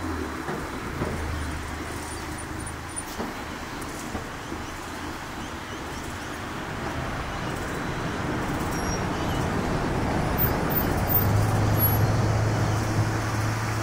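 Road traffic: cars passing on the roadway, a steady rush of tyres and engines that grows louder in the second half, with a low engine hum joining near the end as a vehicle goes by.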